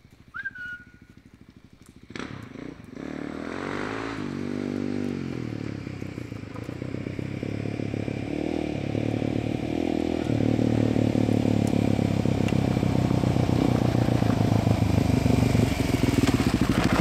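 Suzuki DR-Z400SM single-cylinder motorcycle approaching, its engine getting steadily louder from about two seconds in, with the pitch rising and falling as it is ridden, then running close by near the end.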